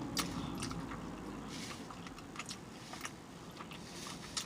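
Close-miked mouth chewing a bite of crepe, with irregular sharp, wet lip smacks about every half second.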